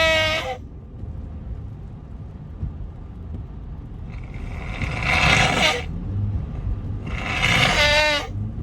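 A man with a head cold making loud breathy nasal sounds, three of them: one ending about half a second in, a long hissing huff about four seconds in, and a voiced exhale with a falling pitch near the end. A steady low rumble runs underneath.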